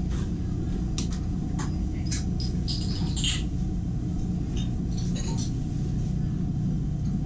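Market food-stall ambience: a steady low hum with scattered light clinks and taps of bowls, spoons and utensils.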